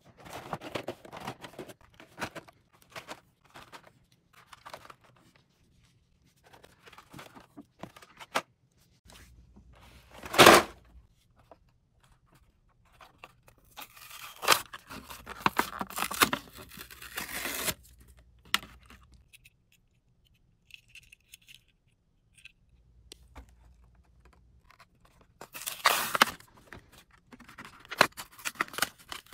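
Hot Wheels toy packaging being handled and torn open: scattered clicks and crinkles of card and plastic, with bursts of tearing and scraping. The loudest is a short rip about ten seconds in, and there are longer stretches of rustling tearing later on.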